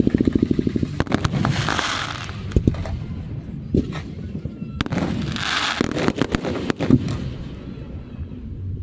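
Fireworks going off: rapid strings of small crackling pops, two hissing swells, and scattered louder bangs.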